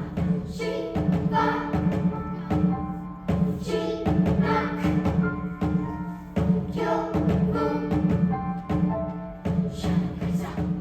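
Youth choir singing held chords in several parts over frequent, sharp percussive beats.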